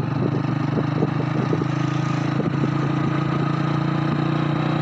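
Motorcycle engine running at a steady speed, heard from on the bike as it is ridden along the road.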